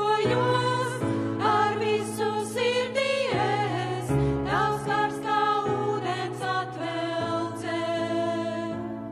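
Women's voices singing a Latvian worship song together, accompanied by an electric keyboard playing sustained chords.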